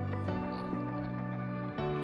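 Background music with sustained chords that change twice.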